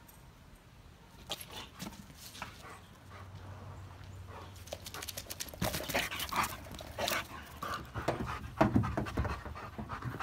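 Dog panting, louder and quicker breaths from about halfway through.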